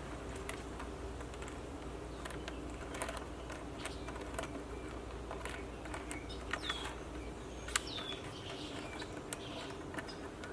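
Light clicks and taps of cardboard jigsaw puzzle pieces being handled and pressed into place on a table. A bird chirps a couple of times in the second half, each chirp a short downward slide.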